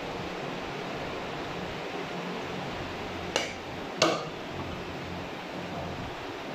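Two sharp knocks, less than a second apart and the second louder, of a heavy butcher's cleaver striking a round wooden chopping block, over a steady background hum.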